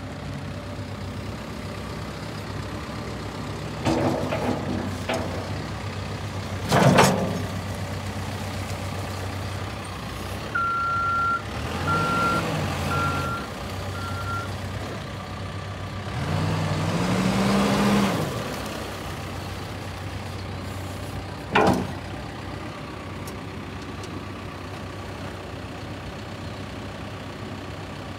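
Cat diesel engine of a 2017 Cat 420F IT backhoe loader running at idle and revving up and back down twice, with four reverse-alarm beeps about a third of the way in. Three sharp clunks stand out above the engine.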